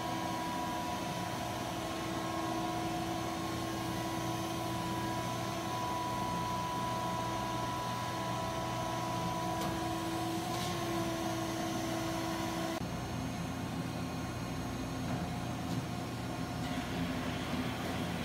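PTFE ram extrusion machinery running: a steady mechanical hum with several steady whining tones. About two-thirds of the way through, the tones change abruptly.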